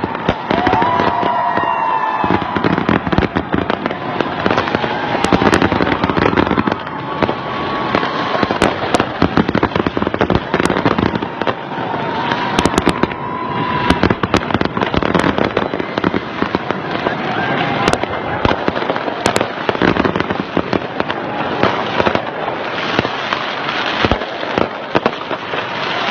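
Aerial fireworks display going off in dense, rapid bangs and crackles without a break.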